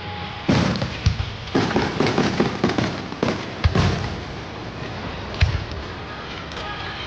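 Aerial fireworks shells bursting: a bang about half a second in, then a quick run of sharp bangs and crackles for about three seconds, and one more sharp crack later on.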